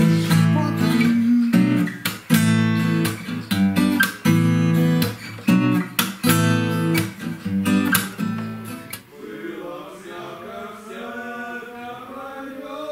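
Background music of a strummed acoustic guitar playing a steady rhythm. About nine seconds in the strumming stops and a lone voice carries on singing without accompaniment.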